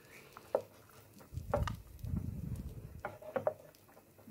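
Butter melting and foaming in a frying pan with a faint sizzle, while a cooking utensil knocks and scrapes against the pan a few times. A low rumble sits under the middle of it for about a second and a half.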